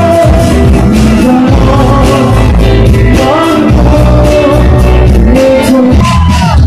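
A male voice singing into a microphone over loud music with heavy bass and a steady beat.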